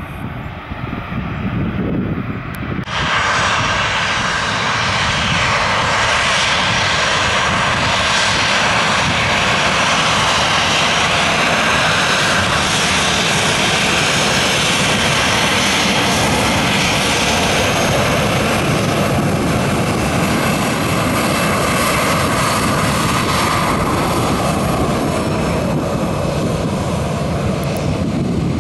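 Ryanair Boeing 737 jet engines running at high power on its takeoff roll: a loud, steady roar with a strong hiss. It cuts in suddenly about three seconds in, after a fainter, more distant jet rumble.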